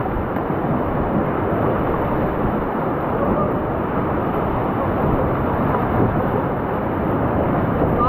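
Steady rushing of river water from the raft.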